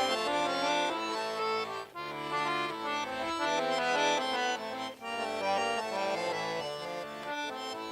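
Accordion playing a Russian folk tune on its own, melody over held chords with no singing, the phrases broken by short pauses about every three seconds.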